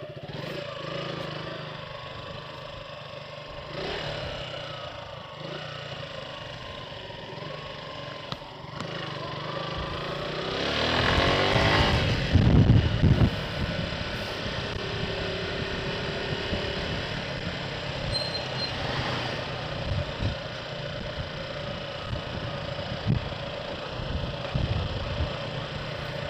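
Motorcycle engine running steadily while riding, with road and wind noise on an action camera's microphone. The engine sound swells louder for a few seconds about halfway through.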